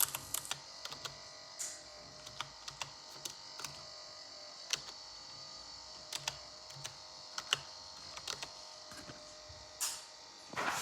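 Desktop PC's fan running with a steady whine, which the owner blames on a faulty fan. Irregular sharp clicks and ticks sound over it every half second to second or so.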